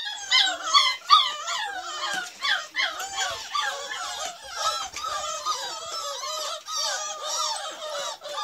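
A litter of beagle puppies whining and yelping together, many high cries overlapping, loudest in the first second or so.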